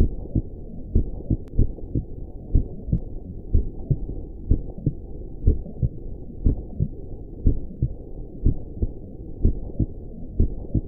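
Heartbeat sound: regular muffled thumps, about one beat a second, over a steady low whooshing rush.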